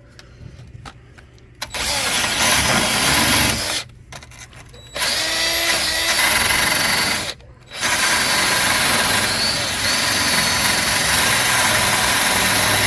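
A handheld power tool run in three long bursts with short pauses between, a harsh noise with a faint whine inside it, used to take rust off a rotted body panel before it is painted.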